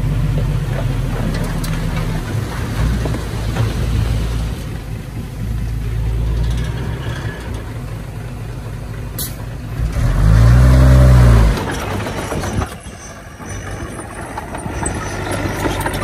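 Heavy diesel earthmoving machinery running, its engine working steadily. About ten seconds in, one engine revs up briefly, rising and falling in pitch, which is the loudest moment.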